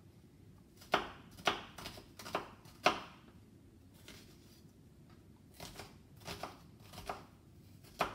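Kitchen knife chopping on a cutting board: about five sharp cuts half a second apart, then a few fainter cuts more widely spaced.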